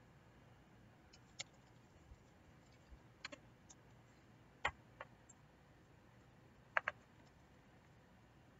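Faint, scattered computer keyboard keystrokes: about eight separate clicks, a few of them in quick pairs.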